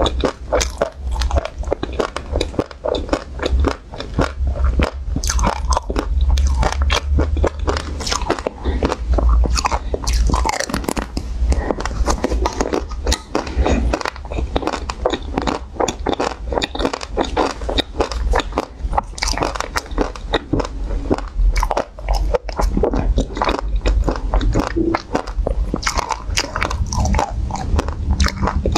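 Close-miked biting and chewing of coated ice cream bars, first a pink-coated one and then a chocolate-coated one, with the coating crunching and crackling between the teeth in a dense, irregular stream of small clicks.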